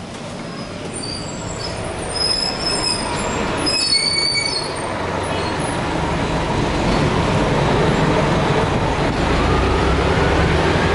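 Elevated subway train passing on the steel structure overhead, growing louder, its wheels squealing in high thin tones over the first few seconds, then a whine rising in pitch near the end.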